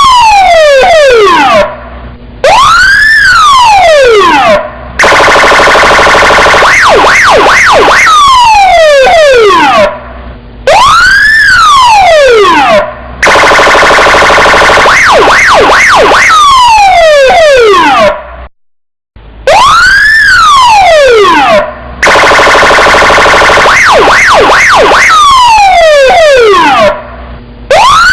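Electronic police car siren, very loud, cycling through its tones over and over. A rapid yelp of short falling sweeps gives way to longer falling sweeps, then a rising-and-falling wail, then a steady buzzing horn tone. The cycle repeats about every eight to nine seconds, with short breaks between the tones.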